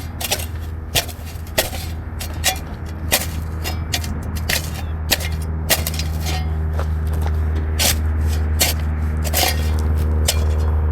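A shovel digging into hard-packed ground: sharp, irregular strikes and scrapes about once or twice a second. A steady low hum runs underneath.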